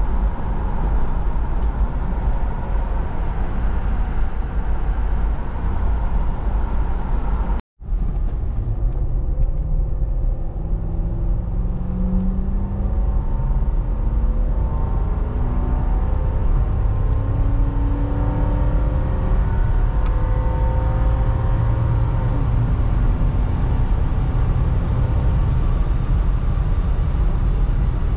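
Toyota 100 Series Land Cruiser driving at highway speed with the windows down: steady road and wind noise fill the cabin. The engine note rises in pitch several times as the truck speeds up. The sound breaks off briefly about eight seconds in.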